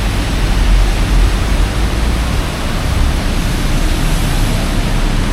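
Steady, loud hiss of heavy rain, with a low rumble underneath.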